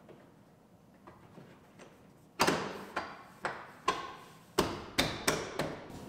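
A plastic rear cab trim panel in a pickup cab being slapped and pressed into place by hand. About two and a half seconds in, a run of about nine sharp knocks begins, each dying away quickly, after a faint quiet start.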